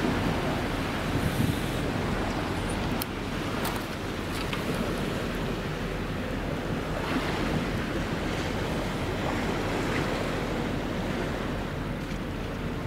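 Steady wind noise on the microphone over the wash of sea water, with two or three light clicks about three seconds in.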